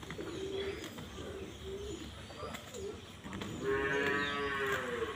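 Farm animals calling: a few short calls, then one long drawn-out call beginning about three and a half seconds in.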